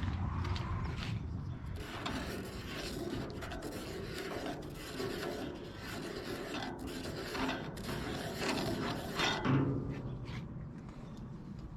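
A steady rasping, rubbing scrape, a little louder between about eight and nine and a half seconds in.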